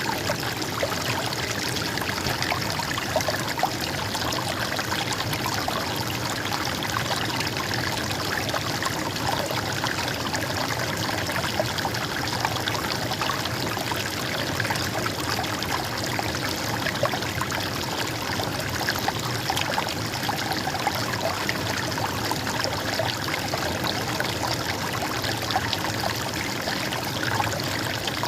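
Running stream water, babbling and trickling steadily.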